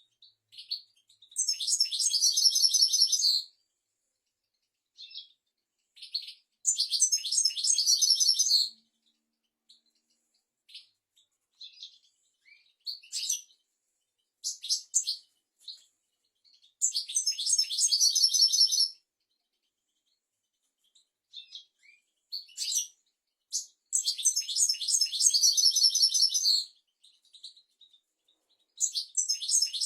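European goldfinch singing: about five high-pitched phrases of rapid twittering trills, each about two seconds long, separated by pauses with short single chirps in between.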